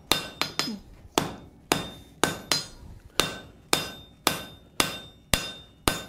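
Hand hammer striking a glowing forge-welded billet on a steel anvil, about two blows a second with a few quick double taps, each blow ringing briefly; the end of the stacked bar is being drawn down to a point.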